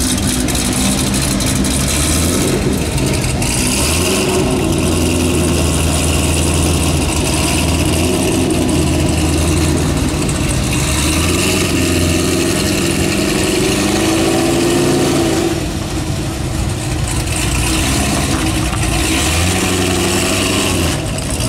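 Corvette ZR1's supercharged 6.2-litre V8 idling through its quad exhaust, with a deep, steady note. The pitch creeps up a little past the middle, then drops back to idle.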